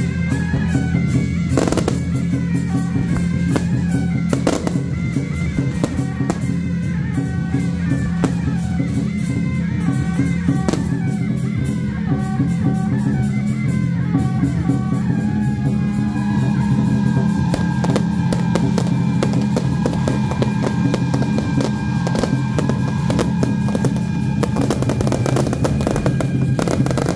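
Loud rock-style music with guitar and drums, with firework bursts and crackling over it; a few sharper bangs stand out early on.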